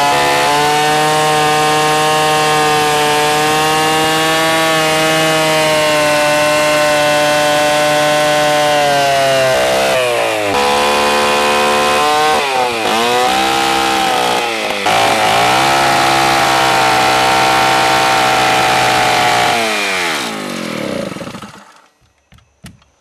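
Stihl chainsaw running at high revs while cutting into a large log. Its pitch dips and recovers several times midway as the saw bites in. About 20 seconds in the revs fall away and the saw stops, leaving a few faint clicks.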